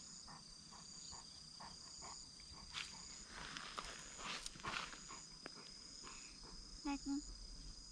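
Insects chirping in a steady high trill, with the soft, rhythmic panting of a Bernese mountain dog in the first half. Two short vocal sounds come near the end.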